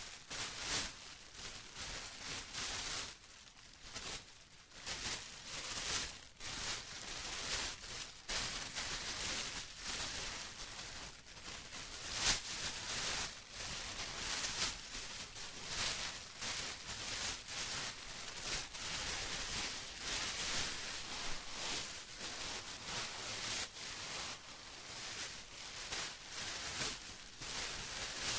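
Plastic being rustled and crinkled in irregular, uneven swells with sharp crackles, the loudest about twelve seconds in.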